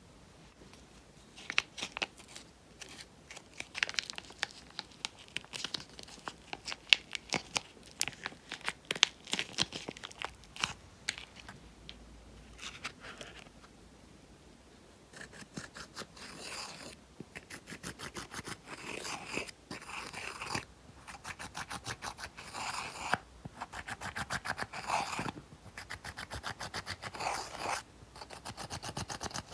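Scattered sharp clicks and taps of small hard objects being handled, then, about halfway through, a small metal tool scraping and crunching pressed powder eyeshadow in its palette pans in quick repeated strokes, breaking the cakes into crumbs.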